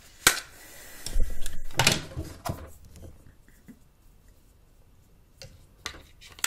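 Plastic clicks and handling noise as the battery and back cover of a Samsung GT-C3590 flip phone are fitted: a sharp click, about a second and a half of rubbing and clatter, then a few light clicks near the end.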